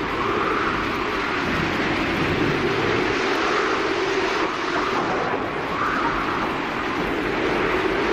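Steady driving noise from inside a vehicle's cab on a rain-soaked highway: engine and tyre hiss on the wet road, with no distinct crash or impact.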